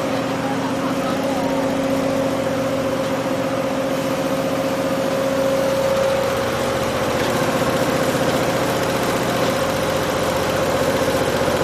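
Richpeace chenille embroidery machine running and stitching: a steady mechanical hum with a fast, even needle clatter. A lower tone in the hum drops out about halfway through.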